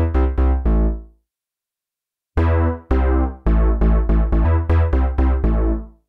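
Synth bass line on the Roland Cloud JD-800 software synthesizer's "Face Bass" preset: short, deep bass notes at about four a second. The phrase stops about a second in, and after a silent pause a second phrase starts about two and a half seconds in.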